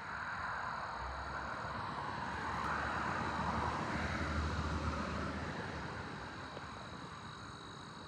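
Distant engine noise of something passing by, a rushing sound with a low rumble that swells to its loudest about halfway through and then fades away. Steady high-pitched insect trills run underneath.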